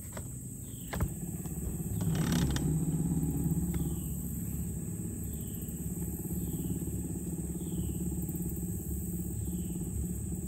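Boat motor running steadily with a low hum, picking up a little about two seconds in.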